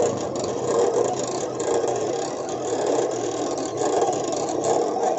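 Silhouette Cameo cutting machine running a print-and-cut job: a steady motor whir with a light rattle as the rollers drive the cutting mat through and the blade carriage moves.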